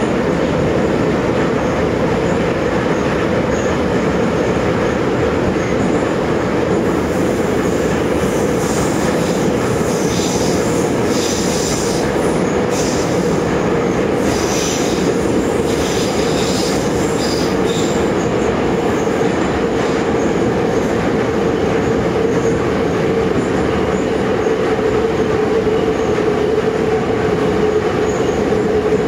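An Ezh3 metro train running at speed between stations, heard from inside the car: a loud, steady rumble with a held humming tone. Bursts of high wheel squeal come and go between about a quarter and two-thirds of the way through.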